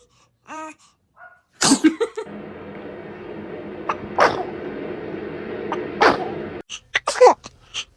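A baby sneezing, about four short sneezes, with small squeaky baby noises before the first. A steady background noise runs under the middle sneezes and cuts off about six and a half seconds in.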